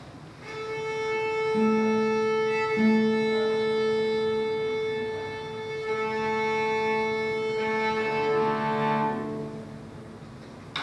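String quartet of violins, viola and cello tuning: one long steady note is held for about eight seconds while lower strings sound shorter notes beneath it, and several notes sound together near the end.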